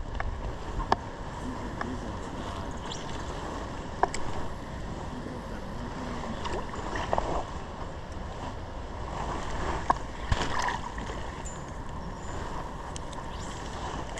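Steady rush of a river's running water, with a few short knocks and splashes scattered through it.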